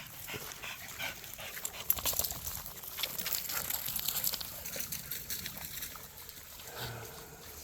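Pet dogs whimpering, with scattered short clicks and rustles.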